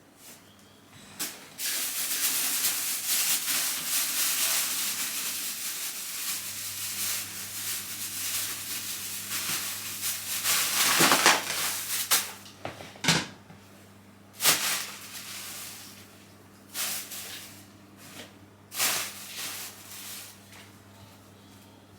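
Mop swishing across a hard floor: a long stretch of continuous scrubbing, then several separate short strokes.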